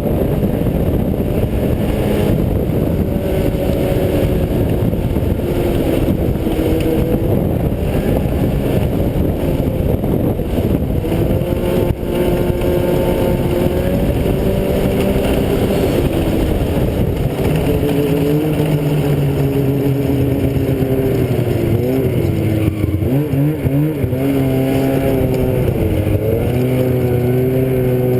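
Vehicle engine running while being driven, its pitch rising and falling with the throttle over a rough rumble, with a quick wavering of pitch in the last third.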